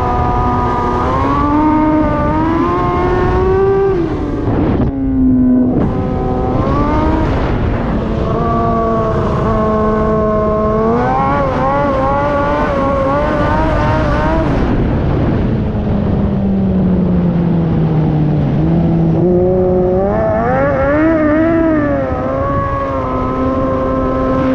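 Kawasaki ZX-636R inline-four sport-bike engine in a Honda TRX450R ATV, running hard with its pitch rising and falling as the throttle is worked. There is a sudden drop about five seconds in, then a long slow fall in pitch past the middle before it climbs again.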